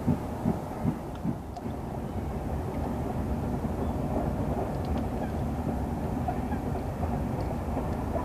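A steam-hauled passenger train running: even rhythmic beats at about two or three a second in the first second or so, then a steady low rumble as the train rolls on.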